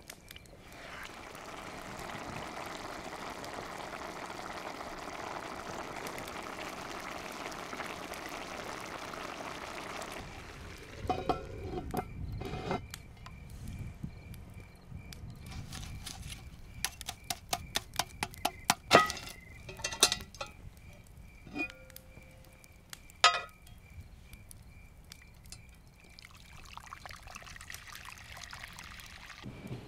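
Tomato and vegetable sauce sizzling in a cast-iron Dutch oven as it is stirred with a wooden spoon. This gives way after about ten seconds to the crackle and sharp pops of the wood fire beneath the lidded pot. Near the end, water is poured from a kettle into a cast-iron pot.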